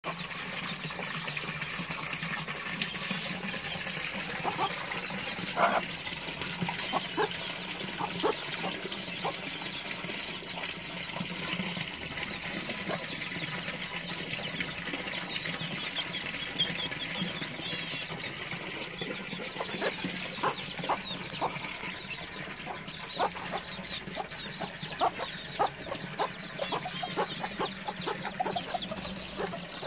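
Chickens in a flock: hens clucking in short, scattered notes while chicks peep in a continuous high chatter, over a steady low hum.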